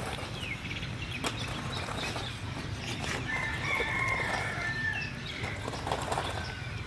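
Puppy eating rice from a bowl: wet chewing and lapping with short clicks. A bird gives a long, steady call in the background about three seconds in.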